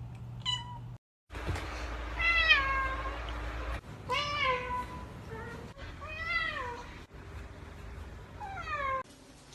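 Cats meowing: a short high meow, then a run of about five drawn-out meows, each rising and then falling in pitch, broken by sudden cuts.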